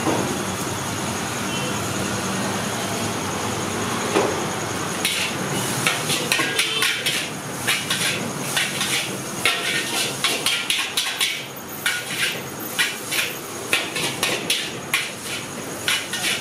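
A metal spatula repeatedly striking and scraping a large wok as noodles are stir-fried. The strikes start about five seconds in and come irregularly, a few a second, over a steady hiss.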